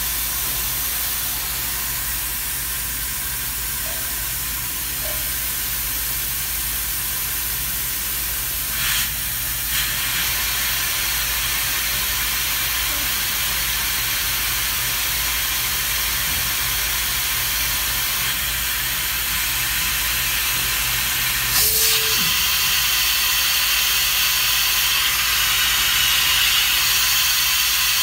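Steady hiss, like rushing air, over a low electrical hum from a gantry machine whose head is fed by a hose. It grows slightly louder later on, with two brief louder bursts about nine and twenty-two seconds in.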